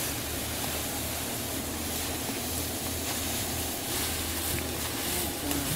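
Wind blowing across the camera microphone: a steady low rumble with hiss.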